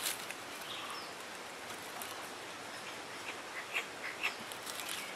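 Rotten log being broken apart by hand: a sharp crack at the start, then a few short snaps and crackles of decayed wood crumbling, over a steady outdoor hiss.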